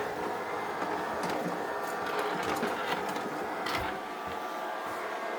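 Robot vacuum cleaner running with a steady motor and brush whir, with a few light knocks.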